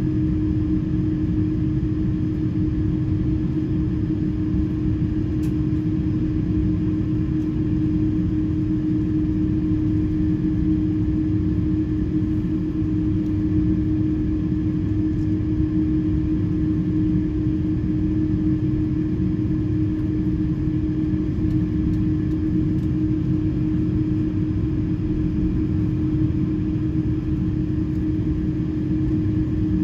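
Cabin noise of an Airbus A330-300 taxiing, heard from a seat over the wing: a steady engine rumble with one constant low hum running through it.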